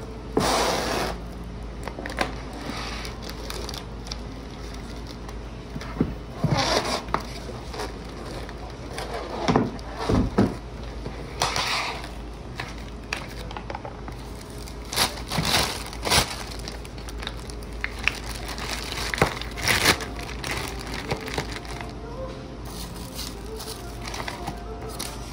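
Plastic cling film and a thin plastic bag crinkling and rustling in irregular bursts as stacked kraft paper food bowls are wrapped and bagged by hand.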